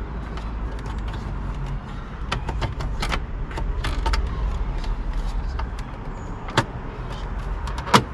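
Plastic steering-column trim panels being handled and pressed together: scattered light clicks and taps, with a sharper snap about six and a half seconds in and another near the end as the trim clips into place. A low steady rumble runs underneath.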